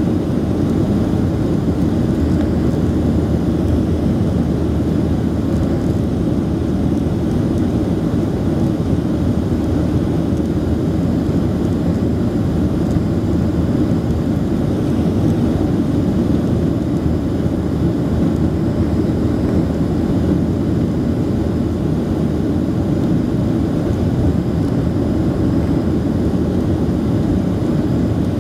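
Steady cabin noise of a Boeing 737-800 climbing out after takeoff, heard from a seat over the wing: its CFM56-7B turbofan engines and the airflow make an even, low-pitched noise that does not change.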